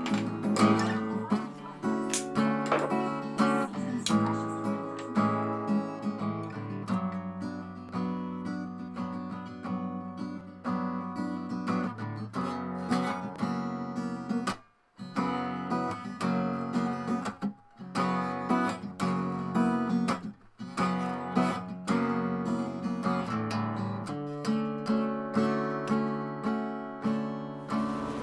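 Background music of strummed acoustic guitar, with a couple of brief breaks.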